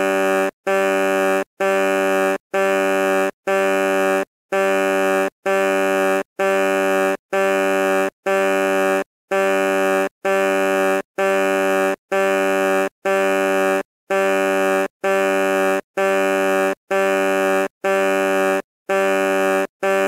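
Truck horn beeping in an even rhythm: short, steady honks of one unchanging pitch, about one a second, with brief silent gaps between them.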